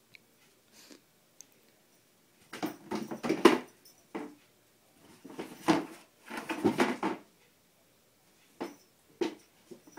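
A cat knocking over and batting a cardboard Quaker Oats canister around inside a storage bin: clusters of knocks and rattles, the loudest about three seconds in and more around six to seven seconds, then a few single taps near the end.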